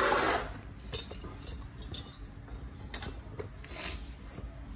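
Metal hand tools being handled and put down: a short rustle at the start, then a few scattered light metallic clinks and knocks.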